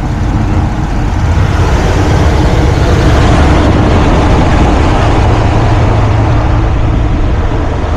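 HVAC air handler's blower wheel running at full speed with a loud, steady rumble, the whole unit shaking: a mouse caught in the blower wheel has thrown it out of balance.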